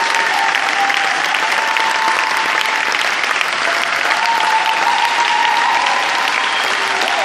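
Large audience applauding: steady, dense clapping of many hands.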